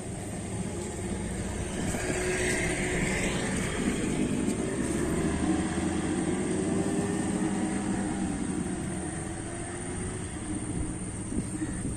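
Boat engine running steadily, its pitch wavering slightly, with a brief hiss about two to three seconds in.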